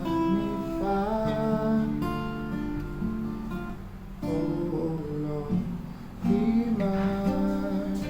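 Acoustic guitar being strummed, playing a run of sustained chords.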